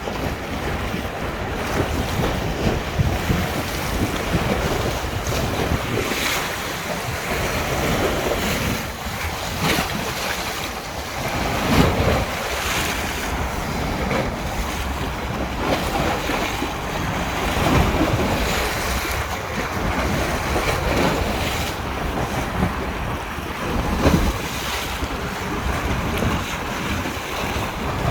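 Wind-whipped river waves splashing, with a louder surge every couple of seconds, and wind buffeting the microphone.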